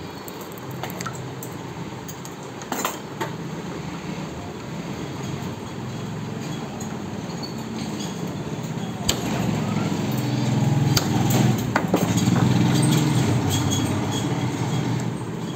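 A low mechanical hum that swells louder in the second half, with scattered sharp metal clinks and knocks.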